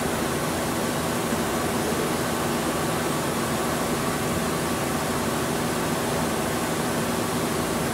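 Steady mechanical hum and hiss of a CNC tool grinder's coolant unit and its pump motor running, with a few steady low tones and no change in pitch or level.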